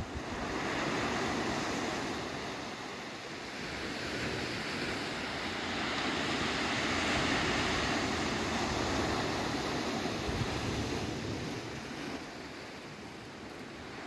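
Small Mediterranean waves washing onto a sandy beach: a steady hiss of surf that swells about a second in, eases, swells again through the middle and fades near the end.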